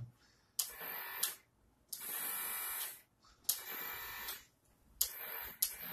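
Snap Circuits toy fan motor, a small electric motor with a propeller, whirring in four short bursts of about a second each as a momentary push-button switch is pressed and released; each burst starts sharply.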